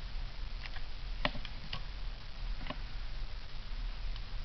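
A few light clicks and taps from trading cards being handled and put down, spread over the first three seconds, over a steady low hum.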